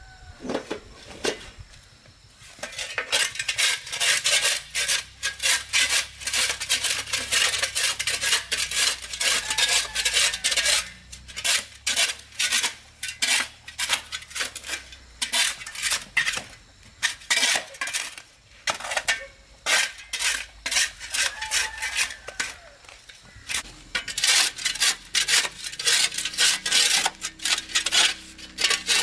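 Rapid, repeated scraping strokes with light clinks of hard objects, starting about two seconds in and broken by a few short pauses.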